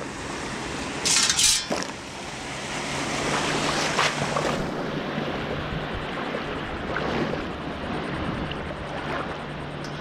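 Shells and pebbles clattering in a perforated metal sand scoop as it is shaken out, a loud burst about a second in, followed by water sloshing and splashing around wading legs in choppy surf.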